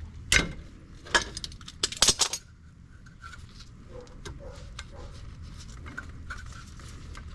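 Metal brake parts and hand tools being handled: a few sharp clinks in the first two and a half seconds, then light scattered ticks.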